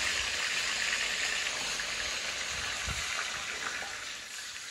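Lassi (buttermilk) poured from a steel bowl into a hot karahi of oil and burnt garlic, sizzling as the liquid hits the hot pan and dying down near the end.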